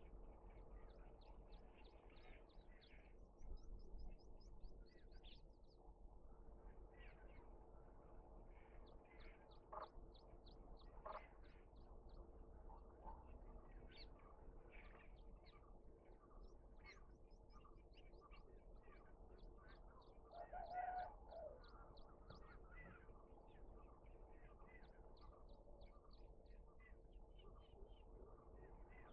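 Faint birdsong: small birds chirping in quick repeated series throughout, with a lower, louder call about twenty seconds in, over a faint steady hum.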